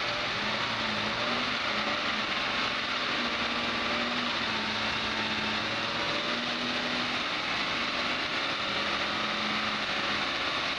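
2010 Audi Q5 running on a lift in gear, its drivetrain turning the front wheel freely in the air: a steady engine and driveline running noise with a faint hum that wavers slightly in pitch.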